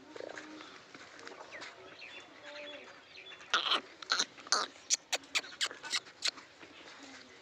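Totapuri goat feeding on green fodder close to the microphone: a quick run of about ten sharp crunching snaps, about three a second, starting about halfway through as it tears and bites the stalks.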